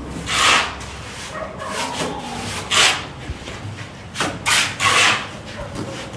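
Trowels scraping and slapping wet cement render onto a brick wall in several short rasping strokes.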